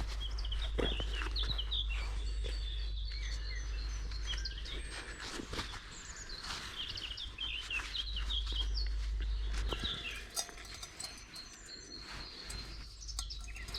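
Woodland birds singing, with many quick, high chirping phrases throughout, over a steady low rumble and a few scattered light clicks and knocks.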